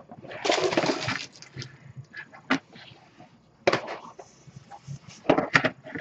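Plastic bag of wooden game cubes crinkling and rattling as it is handled, followed by a few sharp knocks and taps on the table.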